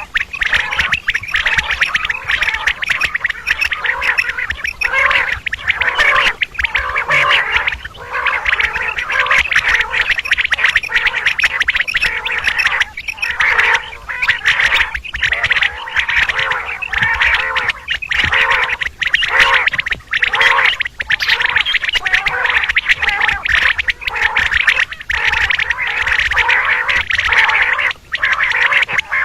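Female common quail calling: a dense, continuous chatter of short, rapid calls with only brief pauses.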